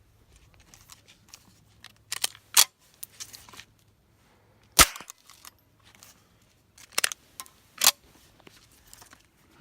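A .22 firearm fired several times as single shots, sharp cracks spaced about one to three seconds apart with quiet in between.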